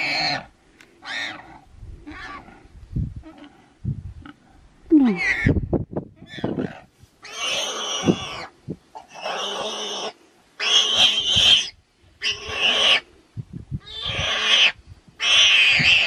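Warthog squealing in a lioness's grip: a run of shrill screams, each about a second long, coming roughly every one to two seconds and louder and closer together in the second half. These are the distress cries of a warthog held by the throat and still alive.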